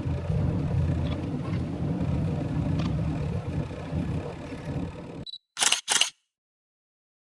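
A steady low machine-like rumble cuts off abruptly about five seconds in. Then comes a short high beep and a double click of a camera shutter, the focus beep and shutter of a photo being taken, set against dead silence.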